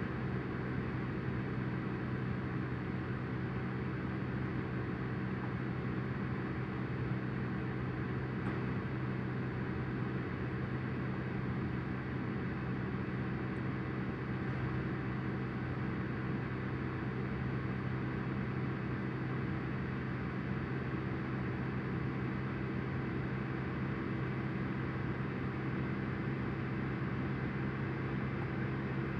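Steady low electrical hum with an even hiss behind it, unchanging, with no distinct clicks or events.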